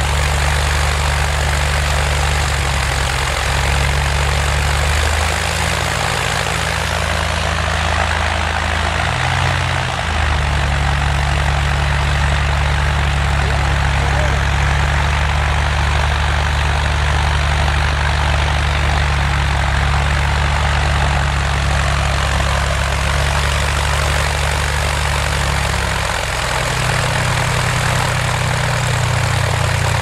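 High-wing single-engine propeller plane running on the ground, a steady engine drone whose pitch shifts several times as the engine speed changes, with a loud rushing propeller noise over it.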